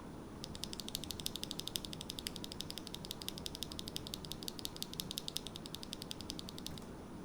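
Mechanical keyboard fitted with Akko V3 Cream Yellow linear switches, its keys pressed in a rapid, even run of clicks, about ten a second, which stops near the end.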